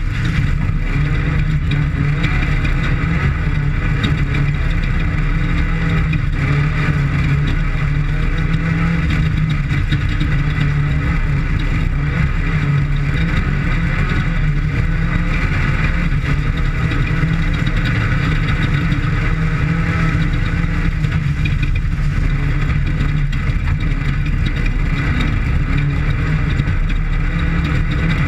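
Off-road desert race vehicle's engine running hard, loud and steady without a let-up, during a qualifying lap.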